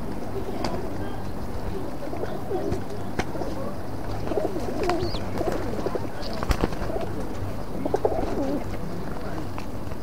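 Several pigeons cooing, their low wavering calls overlapping, with a few sharp clicks in between, the loudest about six and a half seconds in.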